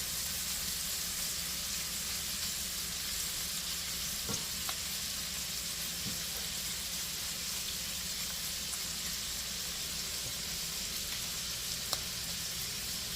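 Shrimp frying in hot olive oil in a pan over medium heat, a steady sizzle with a couple of small pops, as they cook in a single layer until they turn pink.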